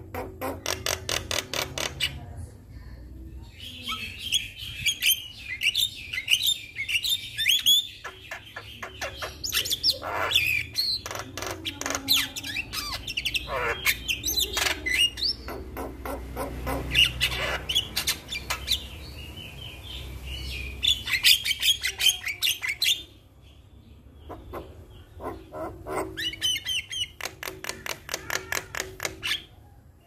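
Javan myna singing in long bouts of rapid rattling clicks mixed with chirps and squawks, with short breaks between bouts.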